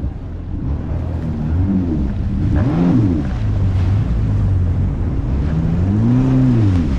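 Jet ski engine running at low speed. Its pitch rises and falls as the throttle is opened and eased off, twice clearly, with the longest rev near the end. Water and wind noise run underneath.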